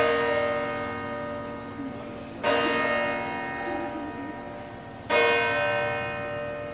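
A single church bell tolling slowly: three strikes about two and a half seconds apart, each ringing on and fading before the next.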